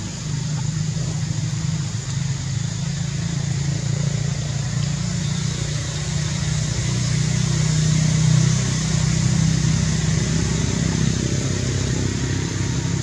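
A steady low rumble of a running engine, swelling slightly partway through, with a constant high hiss above it.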